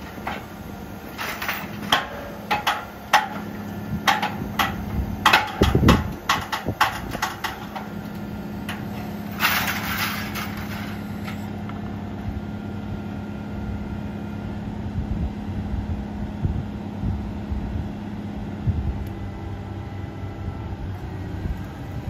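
Case IH Quadtrac 470 diesel engine running steadily while the folded wings of a John Deere 2310 mulch finisher are lowered hydraulically for field work. The lowering sets off a string of metal clanks and rattles from the frame and tool bars, with one heavy thump about six seconds in; after about eleven seconds only the engine remains.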